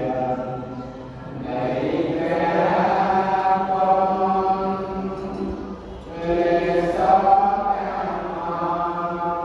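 Buddhist chanting in long, drawn-out phrases, one phrase swelling in about one and a half seconds in and another about six seconds in.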